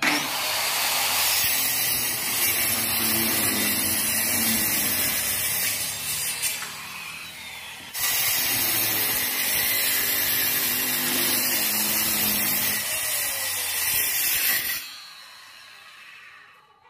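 Maktec circular saw running in a guide jig and cutting into a pallet-wood panel. The cut eases off for a moment about six seconds in and comes back hard at eight seconds. Near the end the motor is switched off and winds down.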